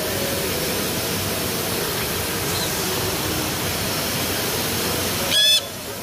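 Steady noise of factory machinery, then, about five seconds in, a single short, loud, harsh screech from a sun conure.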